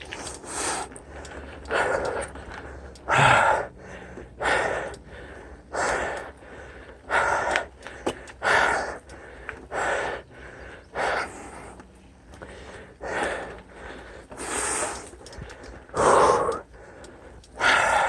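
Heavy, rhythmic breathing of a mountain biker winded from climbing, a loud breath roughly every second and a half.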